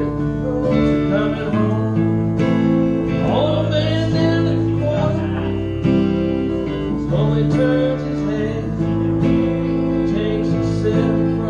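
Live acoustic guitar strumming with a man singing over it, a few sung phrases coming and going.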